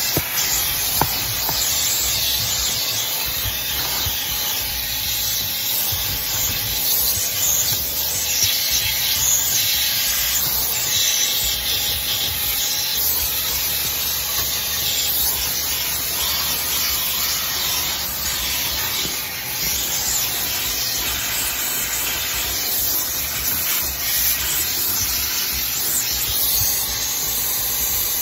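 HART 10-gallon wet/dry shop vacuum running, its hose and crevice tool drawing air along car floor carpet: a steady rush of air.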